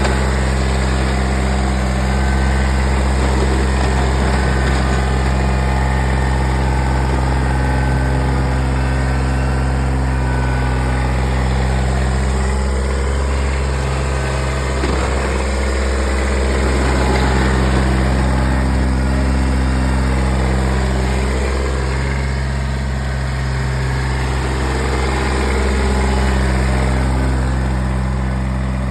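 Kubota BX1800 compact tractor's three-cylinder diesel engine running at a steady speed, with slight swells in loudness.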